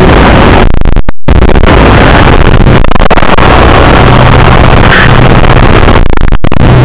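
Extremely loud, heavily clipped and distorted noise that drowns out any tune, with a brief cut-out about a second in and a shorter one near the end.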